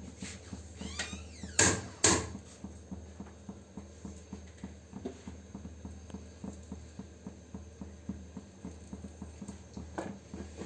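Steel pot of saag greens simmering on a gas burner: rapid, uneven ticking and crackling over a steady low hum. Two sharp clicks come about two seconds in.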